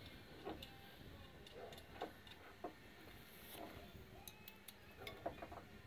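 Near quiet with a few faint, irregular clicks and light taps.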